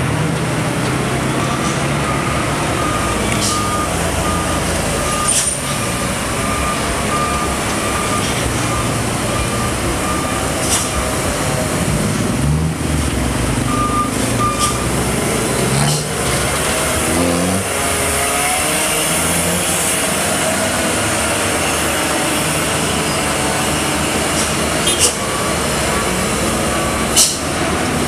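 Heavy diesel trucks running under load up a steep hairpin, with passing traffic and the engine pitch rising a few times midway. An intermittent beeping sounds for the first half, and a few short sharp sounds stand out near the start, middle and end.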